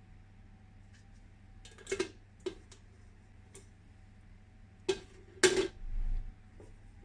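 Kitchen items being handled: scattered clinks and knocks, with a pair about two seconds in and the loudest clatter about five and a half seconds in, followed by a short low thump. A faint steady hum lies underneath.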